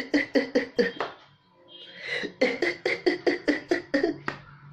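A man imitating a mobile phone ringtone with his voice: rapid repeated syllables, about five a second. They come in two runs separated by a short break about a second in.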